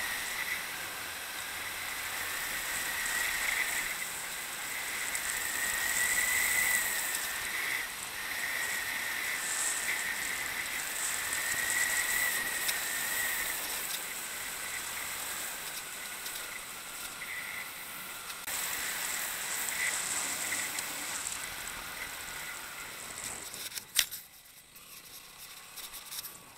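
Motorcycle on the move, heard from a handlebar-mounted camera: a steady hiss of wind and road noise with a faint wavering whine. A sharp click comes near the end, and after it the noise goes quieter.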